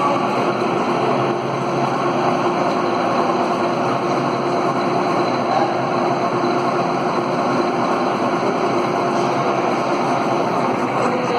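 Metal lathe running with a steady, even mechanical noise.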